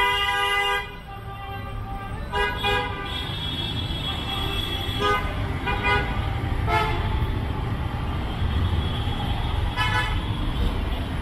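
Motor vehicle horns honking in jammed traffic over the steady low rumble of engines. One loud horn blast cuts off just under a second in, followed by several shorter toots from different horns.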